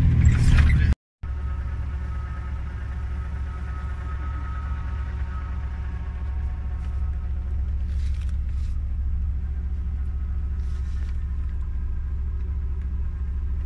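Car driving on a rough dirt road, heard from inside the cabin: the engine and road noise make a steady low rumble with a faint hum. The sound cuts out briefly about a second in, then the rumble carries on evenly.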